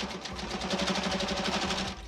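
Sewing machine stitching a seam at a steady, fast pace, stopping shortly before the end.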